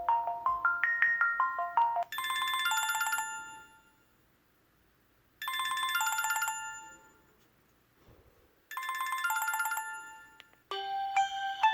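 Alcatel SmartFlip phone ringtones: a quick melody of short pitched notes ends about two seconds in. Then a bright chime rings three times, about three seconds apart with pauses between, and a different quick melody starts near the end.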